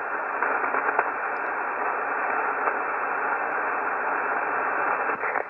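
Steady shortwave hiss from a WebSDR receiver tuned to 14240 kHz upper sideband on the 20-metre band, with no signal on the frequency: open band noise through the narrow single-sideband filter.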